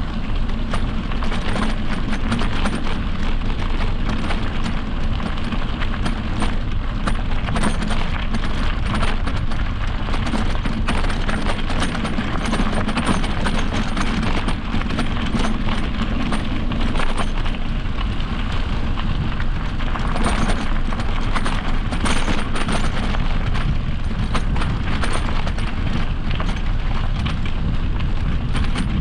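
Wind rushing over the microphone of a mountain bike ride, with the tyres rolling over a dirt trail and the bike clattering over bumps in many short knocks.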